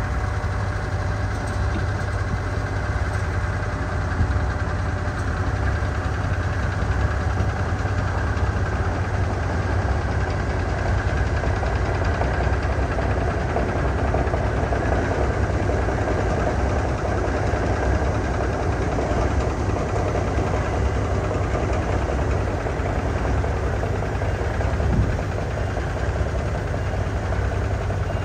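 Genie S-40 boom lift's Deutz four-cylinder diesel engine running at a steady speed, a little busier in the middle of the stretch.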